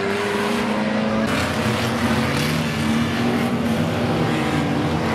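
Engines of a pack of banger racing cars running hard around the oval, their pitch rising and falling as they pass.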